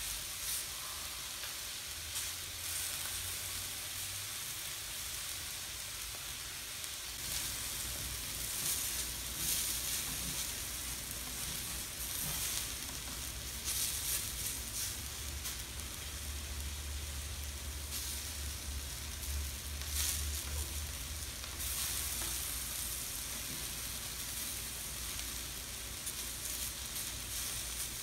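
Skirt steak and sliced mini peppers, red onion and garlic sizzling on a hot stainless steel teppanyaki griddle, with two spatulas stirring and turning the vegetables across the plate in short strokes.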